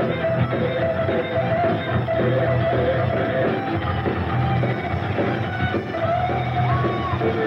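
A live heavy metal band playing: distorted electric guitar through a Marshall amplifier, with bass and drums pounding underneath. The guitar holds long notes, with a higher bent note near the end. The recording is muffled, with little treble.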